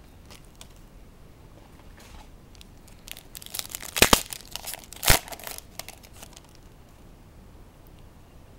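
Trading-card pack wrapper crinkling and tearing open, with a burst of crackling in the middle and two sharp snaps about a second apart.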